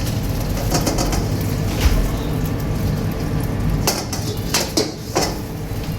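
Kitchen noise: a steady low rumble with a few sharp clanks of metal cookware, four of them spread over the second half.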